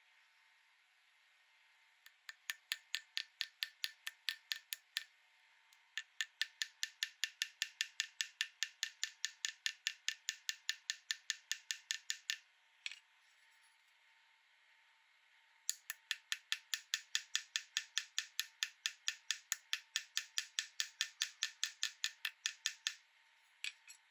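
Small hammer tapping rapidly on a silver chain link's pin against a steel bench block: light, ringing metallic taps about five a second, in three runs of several seconds with a couple of single taps between.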